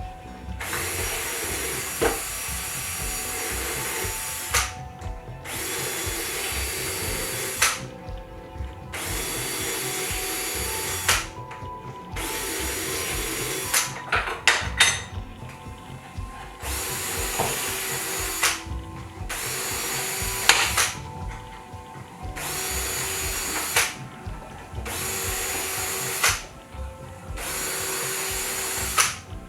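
Power drill run in about eight short bursts of a couple of seconds each, with clicks and knocks in the pauses between. This is typical of deburring drilled holes in the wing skeleton's aluminium parts with a deburring bit, one hole after another.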